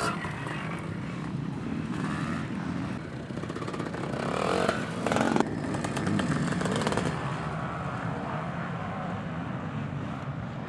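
Vintage motocross motorcycles racing round the track, engines revving hard through a corner. The loudest moment comes as one bike passes close about halfway through, with rising revs.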